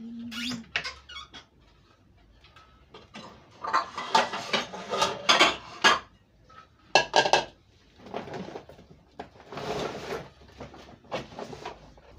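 Crockery and kitchenware being handled on a kitchen counter: several bursts of clinks and knocks a few seconds apart, with softer rustling between, as a ceramic bowl is set down.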